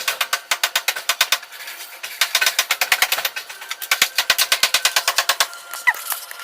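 Rapid runs of sharp cracks, about eight a second, that sound like machine-gun fire. There are three bursts, each a second or so long, with short pauses between them.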